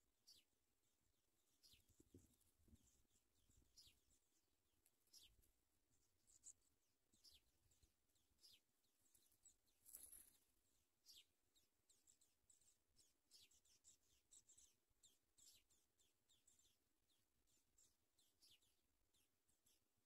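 African pipit nestlings begging with faint, short, high-pitched cheeps, repeated irregularly throughout and a little louder around the middle.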